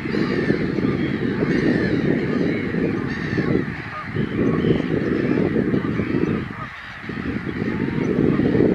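Many waterbirds calling over one another, short overlapping calls, above a loud low rumble of wind on the microphone that eases briefly twice.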